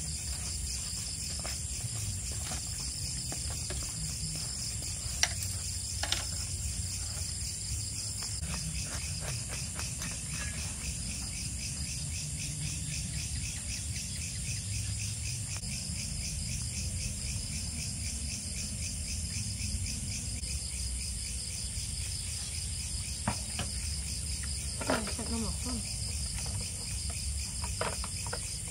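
Crickets chirring in a steady night chorus, a fine rapid pulsing held throughout. A few light clinks of utensils on bowls sound now and then.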